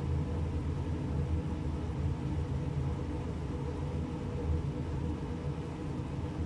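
Steady low mechanical hum and rumble with a faint even hiss over it.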